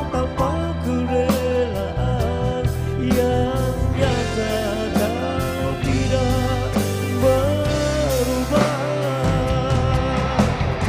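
A live band playing: a male singer sings into a microphone over electric guitar, bass guitar and a drum kit, with regular drum hits and a steady bass line.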